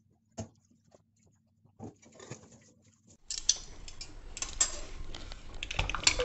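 A few soft clicks and knocks from a pressure cooker on a gas hob. About three seconds in, a steady hiss begins with repeated metallic clicks and knocks as the cooker is handled.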